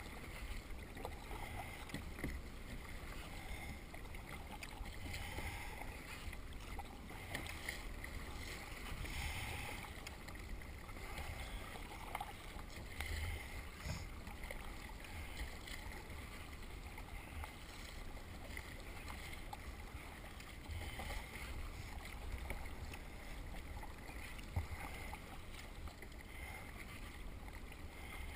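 Kayak paddle strokes: water swishing and dripping off the paddle blades in soft, uneven splashes, over a low steady rumble.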